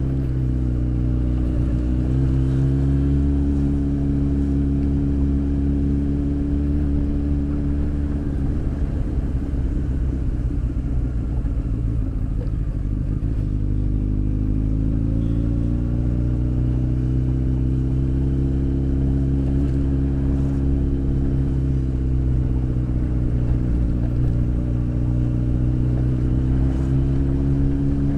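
Honda X4 motorcycle's inline-four engine running on the move. Its note holds steady, falls and breaks up for several seconds in the middle, then climbs back to a steady pitch.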